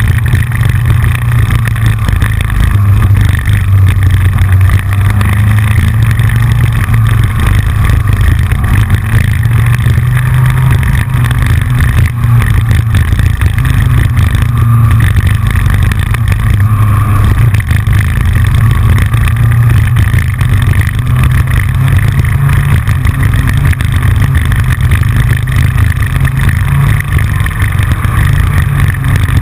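Yamaha FJR1300's inline-four engine running steadily while under way, heard through a camera on the front fairing. A constant rapid clicking comes from the camera mount, which is not secure enough on the fairing.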